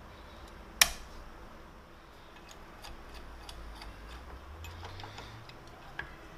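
Light metal clicks and taps as locking C-clamp pliers and a cast iron hacksaw part are handled against a steel angle plate, with one sharp, loud click about a second in and another near the end.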